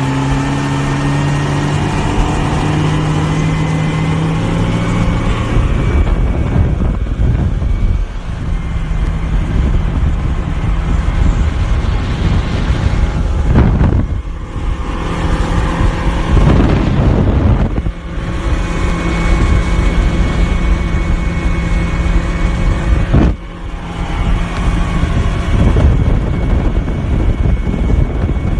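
Boat engine running at speed, with wind and rushing water. The sound is loud and steady, broken by a few brief dips.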